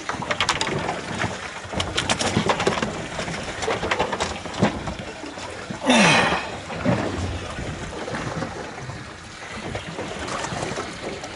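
Handling noises around a cooler on a small boat's deck: a run of clicks and knocks, then a short loud rush about six seconds in, followed by quieter rustling.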